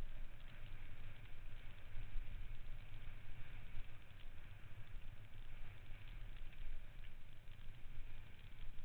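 Mountain bike ridden over a rough, rutted dirt track, heard through a camera mounted on its handlebars: a steady low rumble of wind and vibration with continual small rattles and knocks from the bumpy ground.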